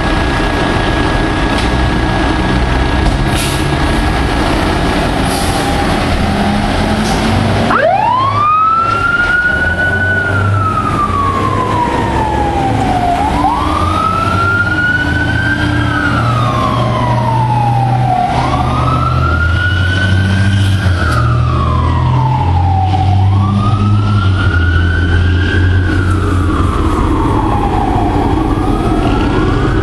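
Fire apparatus engines rumbling as the trucks pull out, with a steady high tone in the first few seconds. About eight seconds in, a fire truck siren starts wailing: each cycle rises quickly, then falls slowly, repeating about every five seconds.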